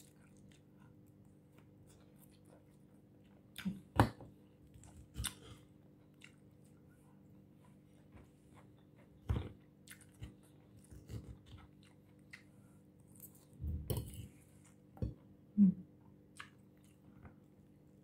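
A person chewing a mouthful of crisp lettuce salad close to the microphone: scattered short crunches and sharp clicks, the loudest about four seconds in, over a faint steady hum.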